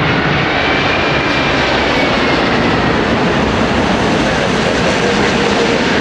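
Airbus A380's four Rolls-Royce Trent 900 turbofans on final approach to land, a steady loud jet roar with a thin turbine whine that drifts down in pitch.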